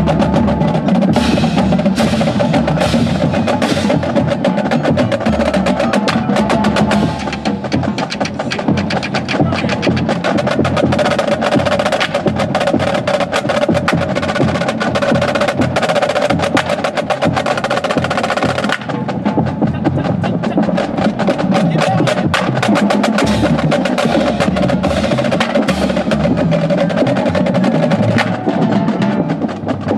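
Marching drumline of snare drums, tenor drums, bass drums and cymbals playing a warm-up exercise together: rapid, dense drum strokes with cymbal crashes.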